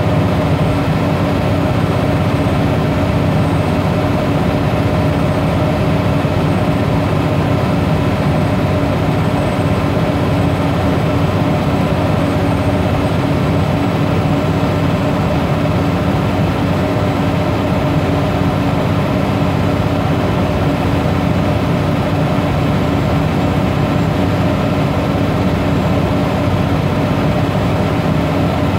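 Scania OmniCity bus engine and drivetrain heard from inside the passenger saloon while the bus drives at a steady pace: a loud, even drone with a few steady whining tones over it.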